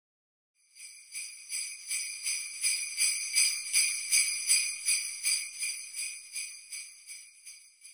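Sleigh bells shaken in a steady rhythm, about three shakes a second, swelling in and then fading away.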